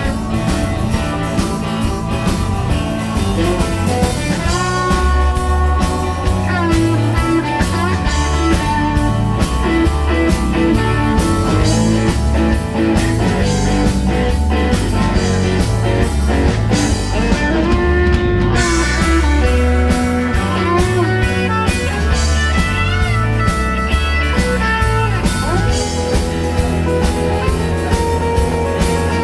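Live rock band playing an instrumental passage: a Telecaster-style electric guitar takes a solo of held and bent notes over drums, bass and keyboard.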